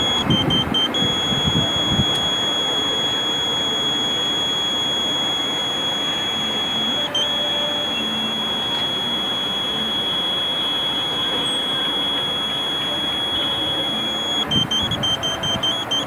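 Steady high-pitched pointing tone from a Tooway (Viasat SurfBeam 2) satellite terminal during dish alignment. It holds one pitch, dips briefly just after the start and again about seven seconds in, and steps rapidly up and down near the end. There is some handling rumble at the start and near the end.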